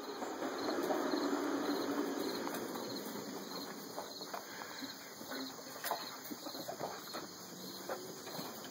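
Crickets chirping in a steady rhythm, about two chirps a second, with scattered faint clicks. A soft low rumble in the first few seconds fades away.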